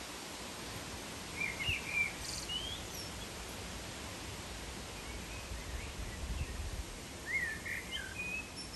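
Outdoor ambience: a steady hiss with a small bird chirping in two short bouts, about a second and a half in and again near the end, and a faint low rumble about six seconds in.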